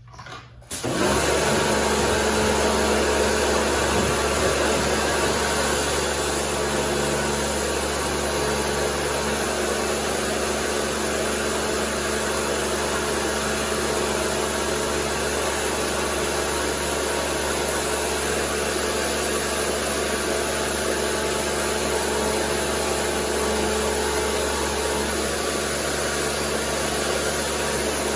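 Electric Kärcher pressure washer kicking in about a second in and then running steadily: a motor-and-pump hum under a broad hiss of high-pressure water spray.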